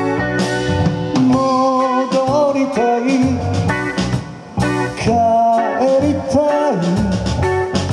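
Live band playing a blues-rock instrumental passage between sung lines, with drums, bass and electric guitar under a lead line of held notes that bend upward in pitch.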